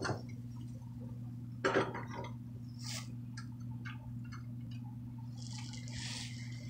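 Scattered small clicks and knocks from a child moving inside a wooden kitchen cabinet, one of them the click of a battery push light switching on, over a steady low hum. A soft rustle comes in near the end.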